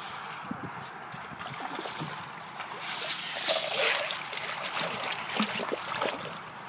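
Pond water splashing as a landing net holding a trout is dipped in and the fish is released, loudest for about a second midway through, with lighter sloshing and dripping around it.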